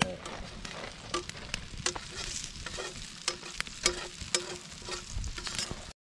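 Egg frying in hot fat in a cast-iron skillet over a campfire: a steady sizzle with frequent sharp crackles and pops.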